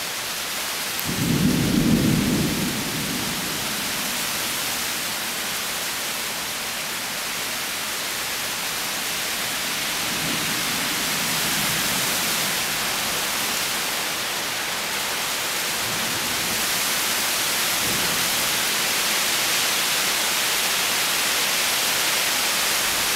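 Thunder rumbling: a strong low rumble about a second in, then fainter rolls of thunder near the middle and later on. These sound over a steady hiss of rain beginning to fall, which grows somewhat louder.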